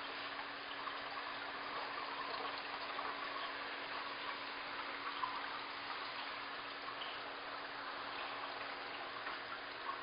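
Aquarium water circulating: a steady trickling rush of water from the tank's filtration, with a faint steady hum underneath and a few small ticks.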